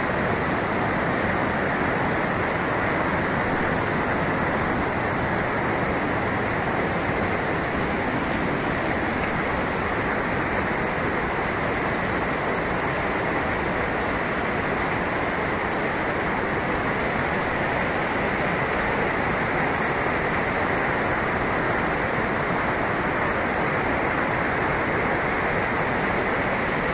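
Rain-swollen river in flood, muddy water rushing steadily over rocks in rapids.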